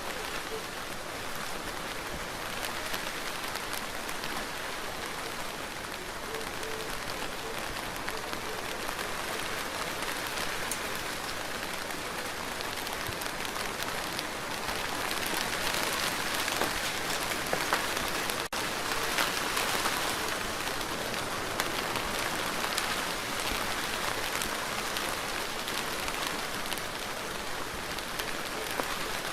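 Steady rain falling, a little heavier for a few seconds past the middle.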